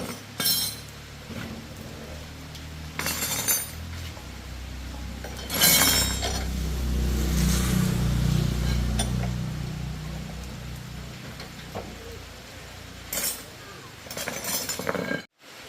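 Metal tools and parts clinking and knocking, several sharp clinks a few seconds apart, with a low rumble that swells and fades in the middle.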